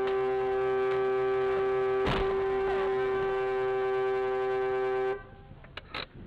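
Car horn held down in one steady blast for about five seconds, warning a car that is reversing toward it, with a thump about two seconds in.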